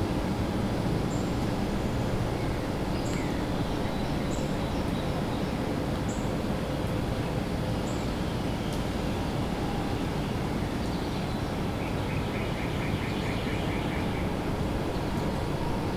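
Steady rumble of distant highway traffic with woodland birds calling over it: short high chirps every second or two, and a rapid trill about eleven seconds in that lasts about three seconds.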